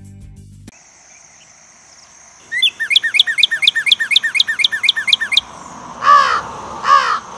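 Birds calling: a fast run of descending chirps, about five a second, then two loud harsh caws near the end. A steady high-pitched whine runs underneath.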